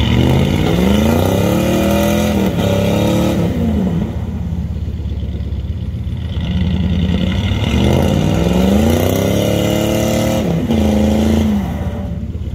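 Car engine revving hard in deep mud, its pitch climbing and holding high, then dropping back, twice over.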